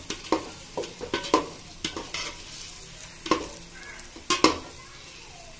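Slotted metal spoon stirring chicken pieces in masala in a metal pot, scraping and knocking against the pot at irregular intervals over a steady frying sizzle; two louder knocks come a little past halfway.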